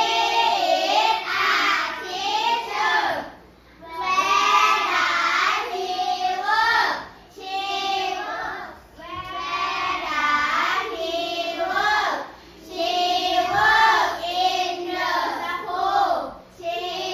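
A class of children's voices in unison, in phrases of two to three seconds separated by short pauses.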